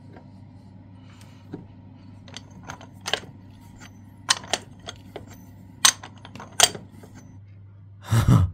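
Irregular sharp metallic clicks and clinks of a socket wrench and metal parts as a harmonic balancer is fitted to the engine's crankshaft and its bolt worked, over a low steady hum. A louder knock comes near the end.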